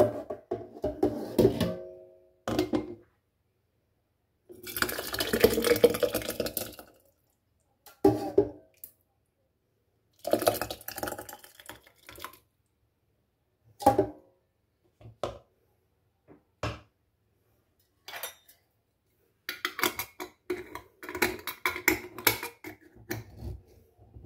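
A mug scooping hot tomato purée from a stainless steel pot and pouring it through a funnel into glass jars. Scrapes and knocks of the mug on the pot, pouring and glass clinks come in separate bursts with quiet gaps between them.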